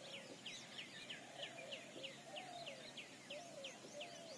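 A small bird calling over and over, a steady series of short, high, falling notes at about three a second, faint against the open-air background.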